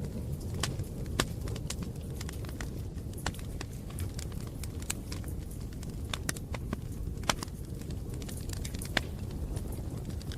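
Wood fire burning and crackling: frequent irregular sharp pops over a low, steady rumble.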